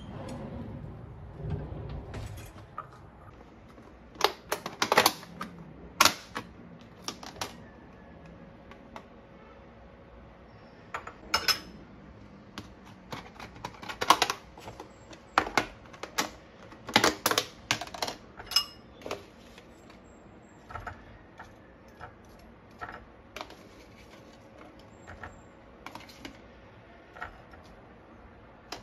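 Plastic food containers being handled and their lids worked, with a metal spoon tapping and scraping against them and a ceramic bowl as cut fruit is scooped out: a string of sharp clicks and taps, busiest in the middle. There is a low bump at the start.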